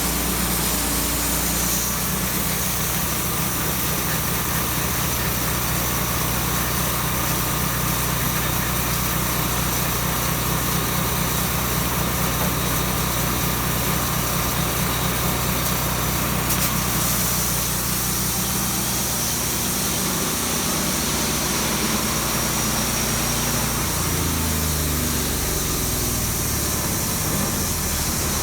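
Petrol engine of a sawmill running steadily; in the last few seconds its pitch drops in steps as it slows down.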